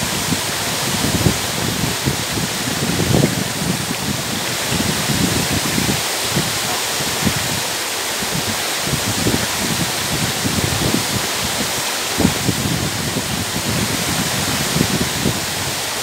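Waterfall pouring down a rock face onto boulders: a steady, unbroken rush of falling water.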